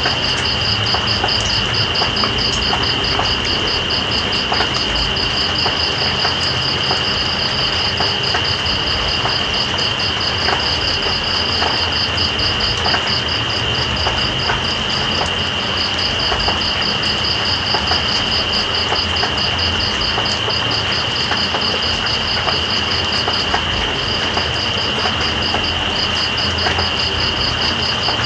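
Night insects calling over steady rain: one insect holds a continuous high drone while another chirps in a fast, even pulse that stops briefly twice. Beneath them, rain falls as a steady hiss with scattered drops ticking.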